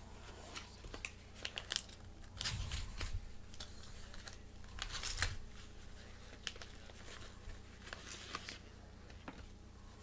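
A padded paper mailer envelope being torn open and handled by hand: irregular short rips and crinkles, loudest about two and a half and five seconds in, as the card inside is worked out.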